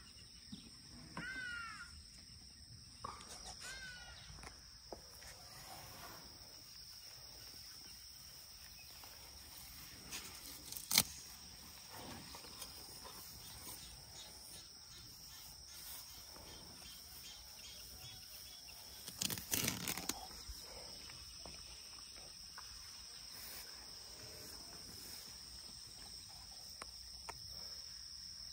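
Steady high-pitched drone of insects calling outdoors. A few short chirping calls come in the first four seconds, and there are scattered soft knocks, with a sharp click about eleven seconds in and a brief cluster of knocks a little before the twenty-second mark.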